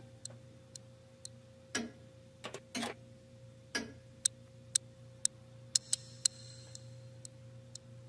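Mechanical alarm clock ticking quietly, about two ticks a second, with a few louder knocks and rustles in the first half.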